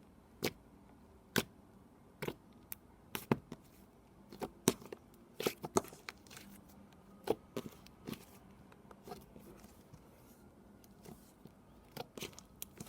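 Chocolate slime being worked by hand, making irregular sharp bubble pops and clicks.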